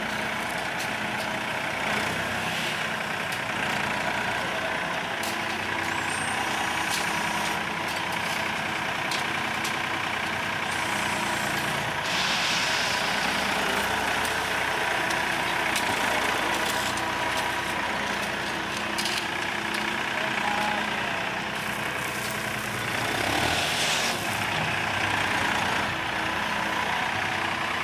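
Diesel engine of heavy construction machinery running steadily at a work site, with two short bursts of hiss.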